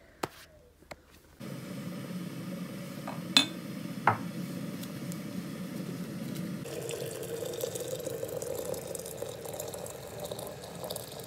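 Water pouring in a steady stream into a glazed ceramic teapot, the rush turning brighter and hissier about two-thirds of the way through. Two sharp clinks about three and four seconds in.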